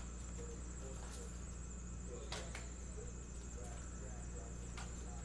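Quiet room tone: a steady low electrical hum and a thin high-pitched whine, with a few faint clicks and one sharper knock about two seconds in.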